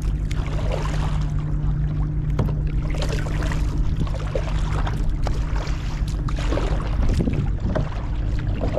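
A double-bladed kayak paddle dipping and splashing in lake water, stroke after stroke, with a steady low rumble underneath.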